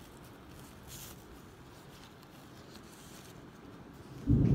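Faint rustling of hands handling a thin organza gift bag, then, about four seconds in, a sudden loud low rumble of thunder breaks in and keeps rolling.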